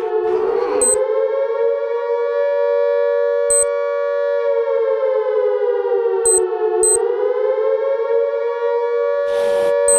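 A siren-like wail, a loud steady tone that slowly sinks and climbs in pitch twice, with a few short high blips over it and a burst of hiss near the end.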